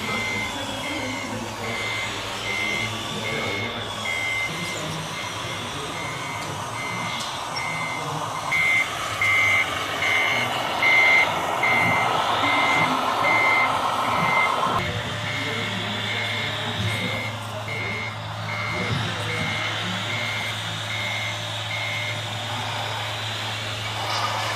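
An RC model truck's reversing beeper beeping steadily, about one and a half beeps a second, over a low hum; it stops near the end. A louder rushing noise joins about a third of the way in and cuts off suddenly just past the middle.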